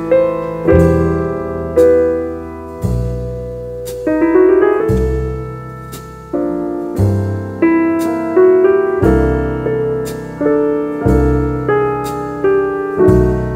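Background music: a jazz piano piece, chords and bass notes struck about once a second, each one fading away before the next.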